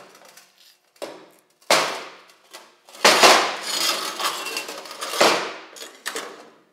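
Several sharp metallic clangs of steel weld plates being handled on a steel welding table, each trailing off in a scraping rasp; the loudest comes about three seconds in.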